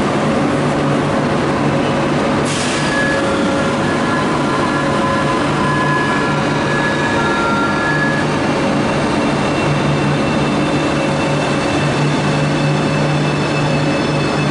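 Renfe Cercanías Civia electric commuter train pulling in to an underground platform, with a steady loud rumble. High whining tones run from about two and a half to eight seconds in, and a brief hiss comes about two and a half seconds in.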